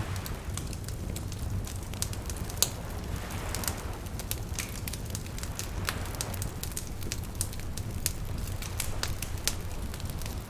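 Wood fire crackling and popping, with sharp irregular snaps over a low steady rumble of flame. A soft wash of small waves swells and fades behind it.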